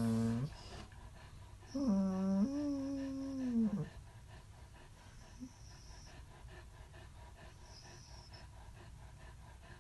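German shepherd dog groaning: one drawn-out vocal groan trails off just after the start, then a second, longer one of about two seconds dips in pitch as it ends.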